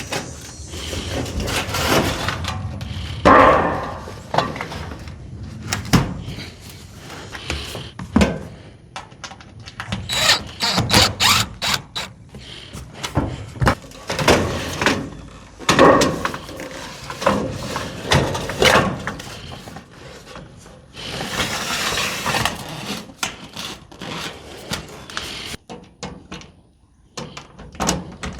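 Irregular knocks, thumps and scraping from hand work on a pole barn wall, as a used billboard and its metal flashing are handled and fitted.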